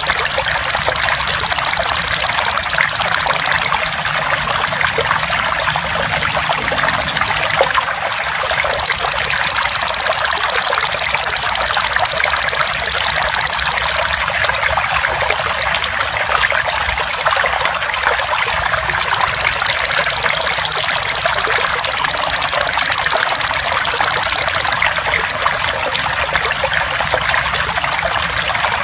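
Trickling, gurgling water runs steadily under the loud, high, rapidly pulsed buzzing trill of a belalang emas (golden grasshopper). The trill comes in three bouts of about five seconds each, with pauses of about five seconds between them.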